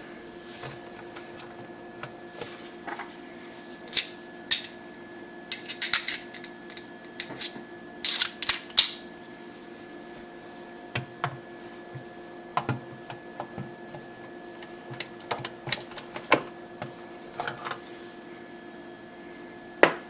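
Scattered sharp clicks and taps of plastic parts being handled on a countertop dishwasher, over a steady faint hum.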